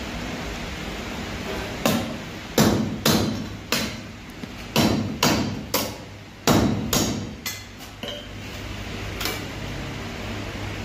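Hand hammer striking a sheet-metal pedestal fan blade where it joins the metal hub spider, fixing the blade in place: about a dozen sharp metallic blows with short ringing, bunched between about two and eight seconds in. A steady low hum runs underneath.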